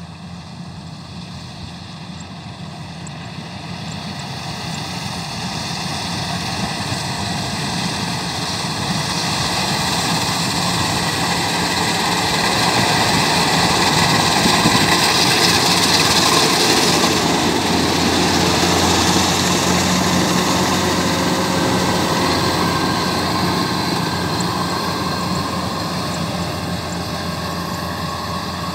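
Kubota DC-93 rice combine harvester running and cutting standing rice: its diesel engine and threshing machinery make a steady mechanical noise. The noise grows louder as the machine comes close, is loudest about halfway through, and then fades as it moves away.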